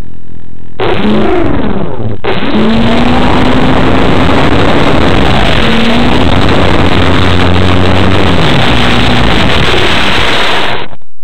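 A model airplane's motor and propeller, close to the microphone, spin up about a second in and run loud, their pitch rising and falling with the throttle. They stop shortly before the end.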